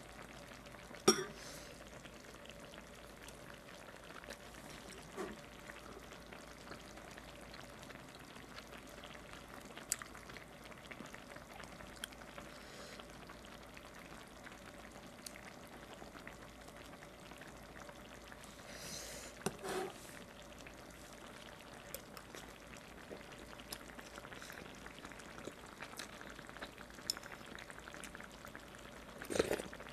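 Quiet mukbang eating sounds: chopsticks and a metal spoon clicking against the pot a few times, and a short slurp of broth near the end, over a steady faint hiss.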